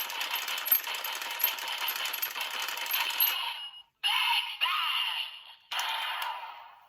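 Zenkai Buckle toy belt playing electronic sound effects and music through its small speaker after a gear is flipped. It comes in three runs: a long first one of nearly four seconds, then two shorter ones with brief gaps between.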